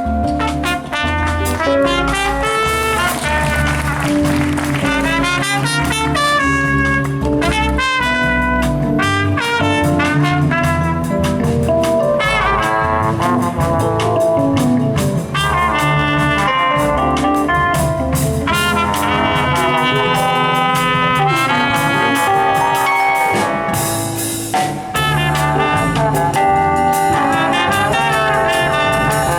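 Band music with brass, trumpet and trombone over a bass line, in a jazz style, playing on without a break.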